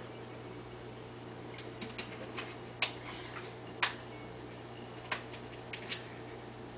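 Steady low hum of aquarium equipment, with scattered sharp clicks starting about two seconds in, the loudest two near the middle.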